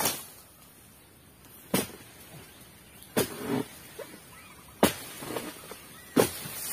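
Bidor dodos, a long-handled oil palm harvesting chisel, chopping into the frond and bunch stalks of an oil palm: five sharp strikes about one and a half seconds apart.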